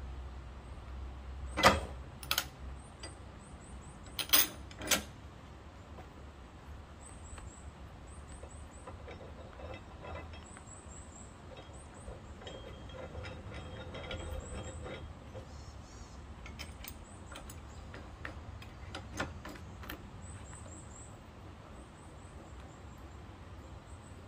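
Four sharp knocks in the first five seconds, then scattered fainter clicks and taps, over faint high chirping.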